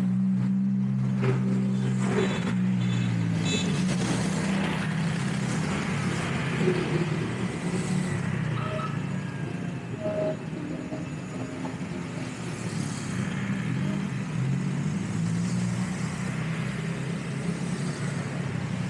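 Street traffic: cars and motorbikes driving past, with a steady low engine hum that is strongest in the first few seconds.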